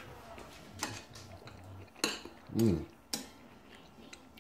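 Metal spoon clinking and scraping against a ceramic soup bowl, three sharp clicks about a second apart. A short hummed "mm" from the eater comes between the second and third clicks and is the loudest sound.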